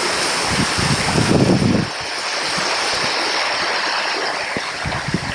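Steady loud rush of falling water from a waterfall, with low buffeting of wind on the microphone about a second in.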